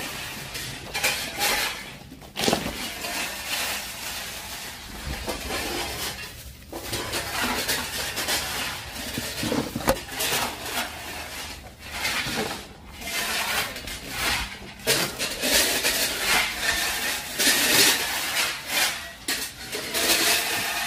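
Loose river stones clinking and crunching underfoot in irregular clicks as someone walks over a rock-edged drain.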